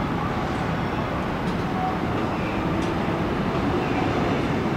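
Steady rumble of passing vehicles in an urban setting, with faint pitched tones coming and going.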